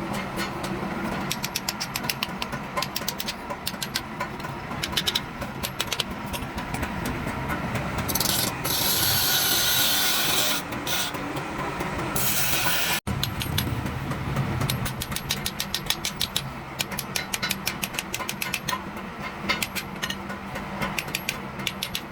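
Hand filing on the knife, a continuous run of short rasping strokes, with two spells of higher hissing scraping about a third of the way in and a sudden break near the middle.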